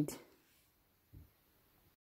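Near silence: quiet room tone after a spoken word fades out at the very start, with one faint, brief low sound about a second in; the sound drops to dead silence at the very end.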